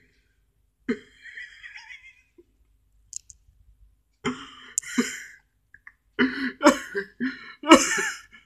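A person's stifled, breathy laughter in short bursts, growing denser and louder over the last couple of seconds.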